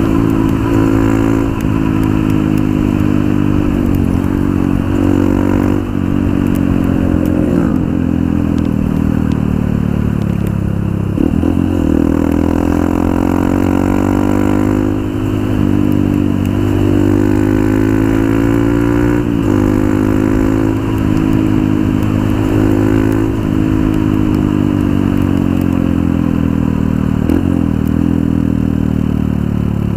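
Honda CRF150L's single-cylinder four-stroke engine running through a Norifumi RV1 aftermarket exhaust while riding. The note climbs and drops several times as the bike accelerates through the gears and eases off.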